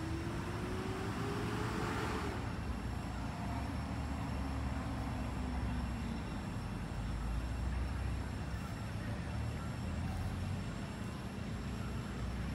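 Steady low rumble of motor traffic, with one engine rising in pitch over the first two seconds before it cuts off.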